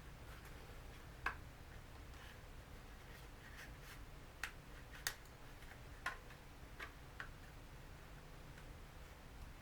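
Small sharp plastic clicks and taps, about six of them irregularly spaced, as the DJI Mavic Pro drone's plastic body frame is handled and lined up for refitting.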